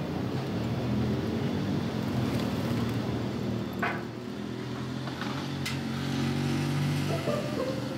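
A motor vehicle's engine running steadily in the street, a low hum that swells and eases, with a couple of faint clicks around four and six seconds in.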